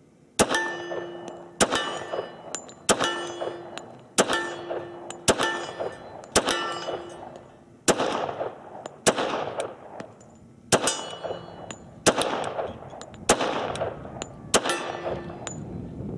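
Twelve shots from an H&K Mark 23 .45 ACP pistol fired one at a time, roughly a second and a quarter apart: a full magazine emptied. Most shots are followed by a brief ringing tone.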